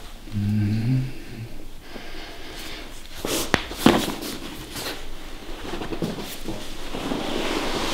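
A chiropractic adjustment: a short low grunt from the patient, then a few sharp cracks of the joints being manipulated, the loudest about three and a half to four seconds in, with fainter clicks later.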